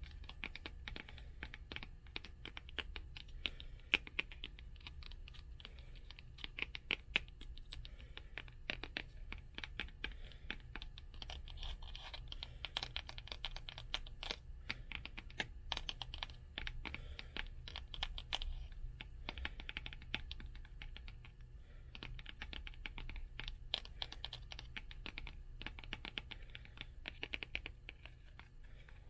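Fingernails tapping and scratching on the covers and spines of old hardback books: a dense run of quick, uneven clicks with patches of scratchy rubbing, over a low steady rumble.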